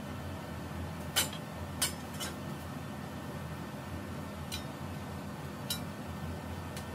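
Metal clothing-rack tubes and fittings clinking and knocking as they are handled and fitted together: a handful of short, sharp clinks, the loudest about a second in.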